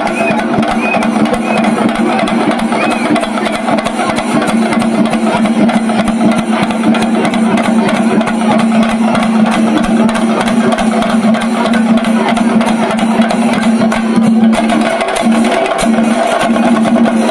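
Music of fast, continuous drumming over a steady droning tone, which wavers briefly about fifteen seconds in.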